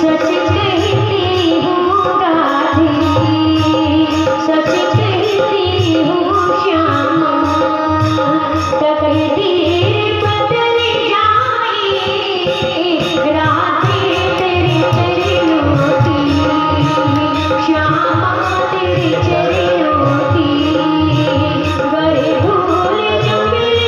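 Hindi devotional bhajan music: a melodic line, with singing, over a steady hand-drum rhythm.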